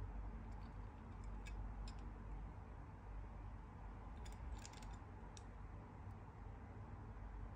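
Faint clicks and taps from a small diecast toy car being turned over in the hand, a few scattered clicks with a cluster about four to five seconds in, over a low steady room hum.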